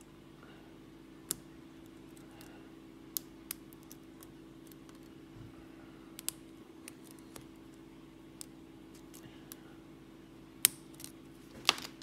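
Scattered small metallic clicks and ticks of a lock pick and tension wrench working the pins inside a brass Lockwood 334 padlock, with two sharper clicks near the end.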